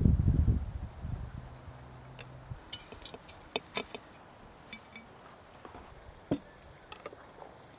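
A low rumble fades out in the first second, then a scatter of light clicks and clinks as glass jars and their metal lids are handled, a quick cluster about three seconds in and single clinks later.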